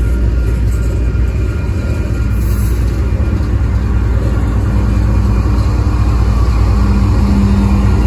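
Canadian National diesel locomotives at the rear of a freight train passing close by: deep steady engine rumble with wheels running on the rail, and a steady engine tone that grows louder near the end as the last locomotive goes past.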